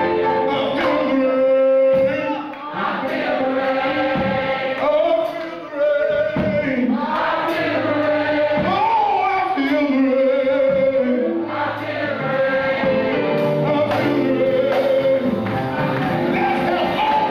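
Live gospel singing: a man sings lead into a handheld microphone, with other voices singing along like a choir.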